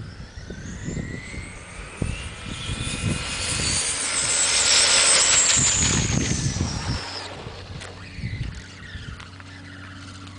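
High electric whine of Traxxas Rustler VXL RC trucks' brushless motors under throttle. Several tones climb in pitch for about five seconds, loudest near the middle, then fall away and fade after about seven seconds. Wind rumbles on the microphone throughout.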